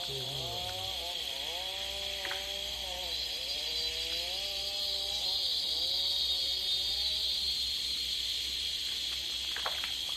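A steady, high-pitched insect chorus of the tropical forest, with a pitched sound underneath that dips and recovers in pitch over and over, fading out about three-quarters of the way through.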